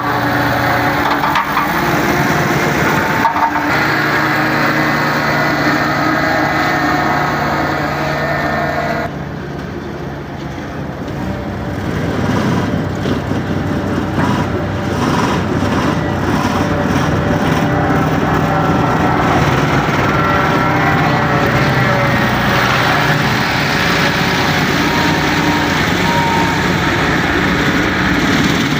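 Engines running steadily at a road construction site, their pitch shifting now and then, with a brief drop in level about nine seconds in.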